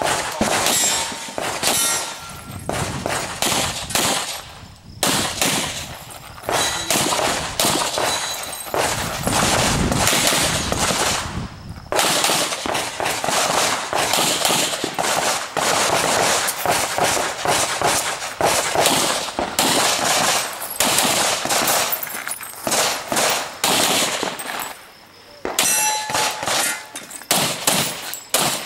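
Semi-automatic pistol shots fired in quick strings during a practical shooting stage, broken by a few short pauses. After some shots a steel target rings briefly.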